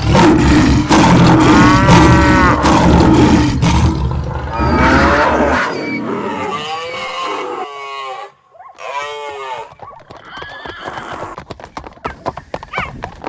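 Animal stampede sound effect: a heavy rumble of many pounding hooves for about the first five and a half seconds, with loud animal calls rising and falling over it. The calls go on after the rumble stops, and near the end comes a quick clatter of hoofbeats.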